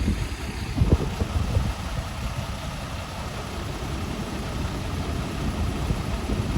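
Large truck's diesel engine running at low revs: a steady low rumble, louder in the first second, then settling.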